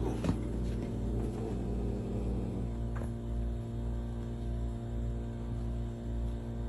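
A steady low hum, with one sharp click a fraction of a second in and a fainter tick about three seconds in.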